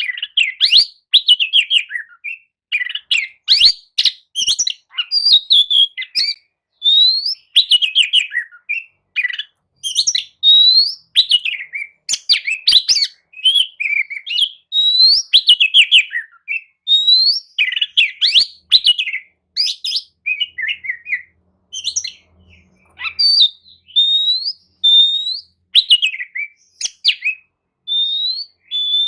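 Oriental magpie-robin (kacer) in full song: a fast, almost unbroken run of varied whistled phrases, rising slurred notes and chattering trills, with a short lull past the middle.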